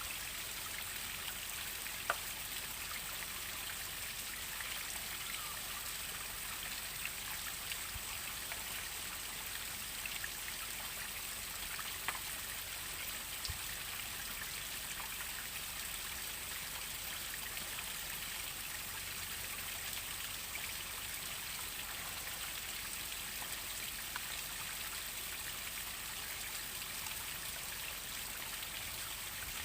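A small waterfall splashing steadily, a light, even hiss of falling and running water, with a few single drips or splashes standing out, one about two seconds in and another about twelve seconds in.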